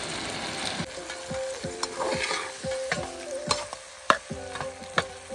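A metal slotted spoon stirring and scraping through vegetables in a metal pan, with sharp clicks of spoon on pan about every half second over a light sizzle of frying, as curd is mixed into the half-cooked vegetables.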